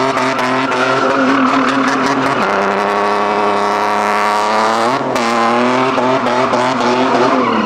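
Drift car's engine running hard while its tyres squeal and skid; the engine note drops about two and a half seconds in and climbs again about five seconds in.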